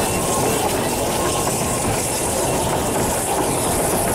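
Ffestiniog Railway narrow-gauge steam train on the move: a steady rumble of wheels on the rails with a high hiss over it.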